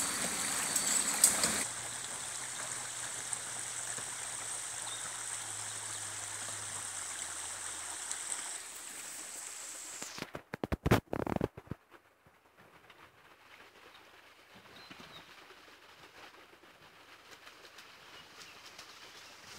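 Steady rush of a shallow rocky stream, with the Mitsubishi L200 pickup's engine idling low underneath for the first several seconds and a couple of sharp knocks about a second in. Partway through, a burst of crackling clicks, after which only the faint stream is left.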